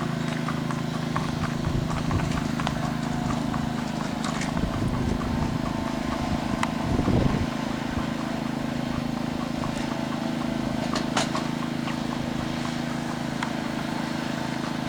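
A horse's hooves clip-clopping at a walk over the steady hum of a running lawn mower engine, with wind rumbling on the microphone and a brief gust about seven seconds in.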